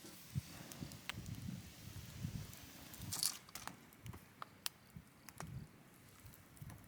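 Faint handling noises: soft rustling with scattered small clicks and taps, and a brief hiss about three seconds in.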